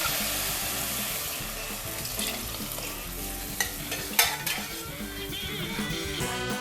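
Water sizzling in a hot pressure cooker just after being poured onto rice fried in ghee, with a spoon stirring the pot. The sizzle fades gradually, and the spoon clinks sharply against the pot about three and a half and four seconds in.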